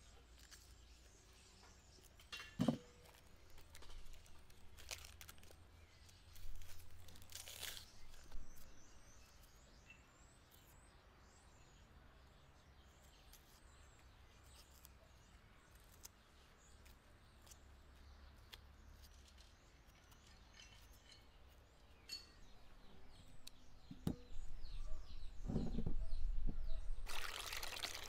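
A kitchen knife peeling onions: scattered light cuts and scrapes at the papery skins, with faint birdsong in the quieter stretches. About a second before the end, water from a hose starts pouring into a glass bowl of peeled onions.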